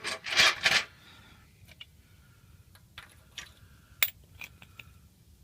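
Jack and its handle being handled and set up: two short scraping rasps, then scattered light metallic clicks and taps, with one sharper click about four seconds in.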